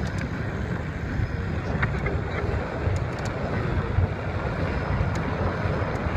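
Wind rushing over the microphone and a steady rumble of tyres and road from an e-bike being ridden at about 22 km/h.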